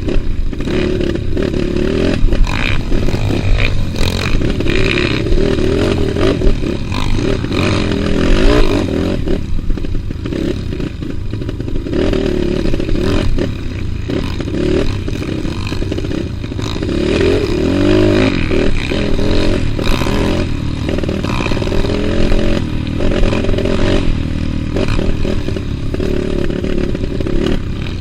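Trail motorcycle engine running under way, its pitch wavering up and down as the throttle changes, with frequent clattering knocks over rough ground.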